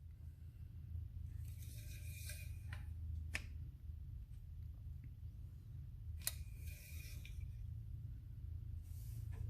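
Engine-oil dipstick of a 2021 Hyundai Sonata sliding down into its tube and drawn back out to read the level: two faint metallic scrapes, about two seconds in and again about six seconds in, each with a sharp click, over a low steady hum.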